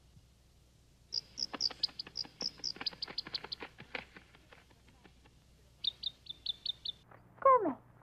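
Baby bird chirping: a quick run of short, high peeps, a pause, then a second shorter run of about six peeps. Near the end a short, loud whine falls steeply in pitch.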